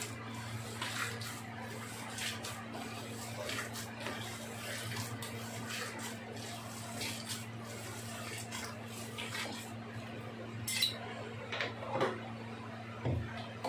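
Hands mashing and mixing raw chicken mince with spices in a steel bowl: a run of soft, irregular squishes and knocks against the bowl, with a couple of sharper clinks near the end, over a steady low hum.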